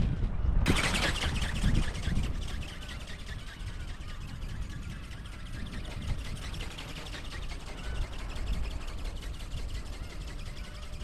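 Strong wind buffeting the microphone: a low rumbling rush, heaviest in the first two seconds or so, then steadier.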